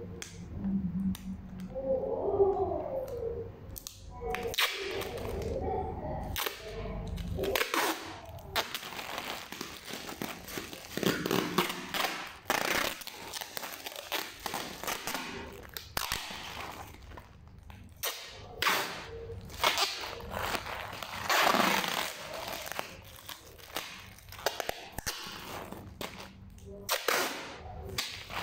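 Clear plastic packing tape being pulled off its roll in repeated crackling rips and wound around a plastic mailer bag, with the plastic crinkling between pulls.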